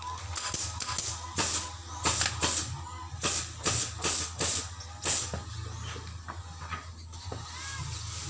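Workshop tool noise during spring bed repair: about a dozen sharp bursts in quick succession over the first five seconds, some with a short hiss, over a steady low hum.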